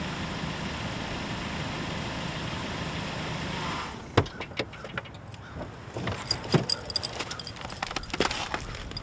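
A car engine idling steadily, then cut off about four seconds in, followed by keys jangling and sharp metallic clicks.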